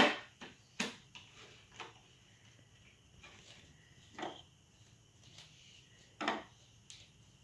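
Small plastic science-kit items being handled and set down on a table: a sharp knock at the start, then scattered lighter clicks and taps at irregular gaps of a second or two.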